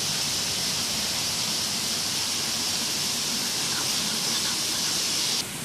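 Steady, even hiss that cuts off suddenly near the end.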